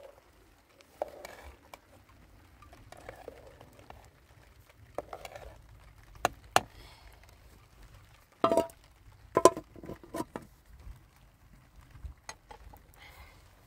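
A metal ladle stirring milk in a metal cooking pot over an open fire: scattered light scrapes and taps, with a few louder ringing clinks against the pot about two thirds of the way through.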